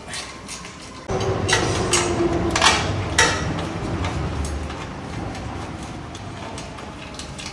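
Hand-tool work on the bolts of a motorcycle's engine guard and underguard. About a second in a sudden clatter starts, with a few sharp metal knocks over the next two seconds, then a noise that slowly dies away.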